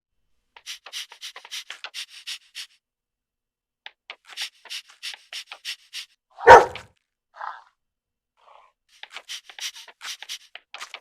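An animal panting: three runs of quick breaths, about five or six a second, broken about halfway by one loud, short sound.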